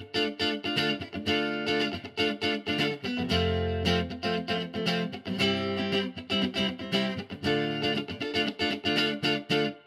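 Tomson Spirit super-strat electric guitar played with a clean tone: quick, choppy picked chords, with one longer held chord about three seconds in, cutting off at the very end.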